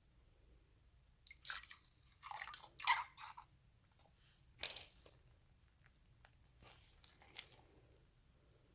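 Slime being squeezed and worked by hand: a quick run of short, crunchy squishes, then a single sharp click.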